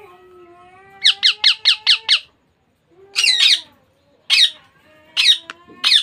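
Young Indian ringneck parakeet calling: a low, drawn-out call, then a fast run of five loud, shrill squawks about a second in. More squawks follow, a pair and then single ones spaced out toward the end.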